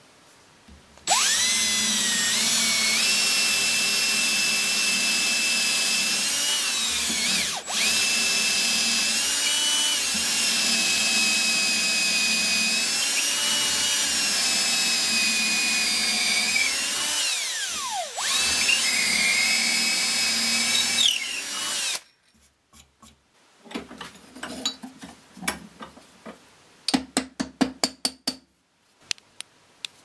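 Power drill boring deep holes into a wooden block with a long drill bit: a steady motor whine that dips and recovers in pitch as the bit loads up. It stops briefly about a third of the way in, winds down with falling pitch, starts again, and then stops for good. A series of light knocks and clicks follows.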